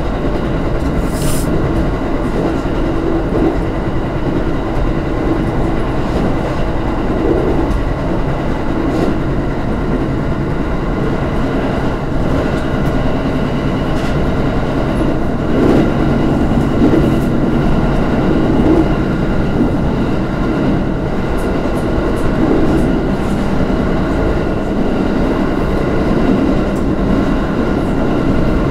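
Aoimori Railway electric train running at speed, heard from inside its rear cab: a continuous rumble of wheels on rail with faint steady whine tones over it. It swells a little louder around the middle, and there is one brief click about a second in.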